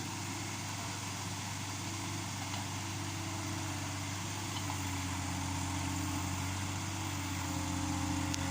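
Yanmar B37 mini excavator's diesel engine running steadily, getting a little louder in the second half.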